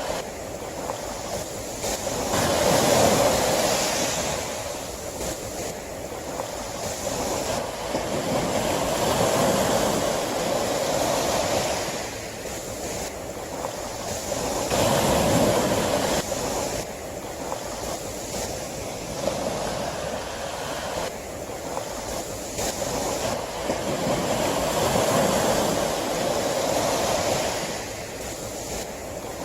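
Sea waves breaking on a shore: a steady wash of surf that swells loudly and falls back several times, every five to ten seconds.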